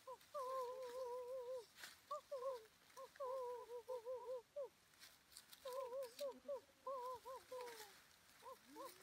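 A bird calling in quick runs of short, warbling notes, with brief pauses between the runs. Leaves crackle now and then as they are handled.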